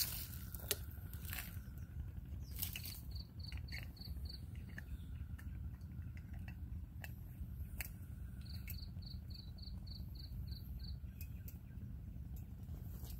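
A small animal's high-pitched chirp repeated about four to five times a second, in two runs of several seconds, one a few seconds in and one past the middle. Scattered sharp clicks and a steady low rumble of wind run underneath.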